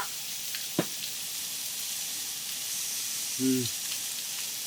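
Food sizzling steadily as it cooks, with a sharp click about a second in. Near the end comes a short closed-mouth "mm" from someone tasting.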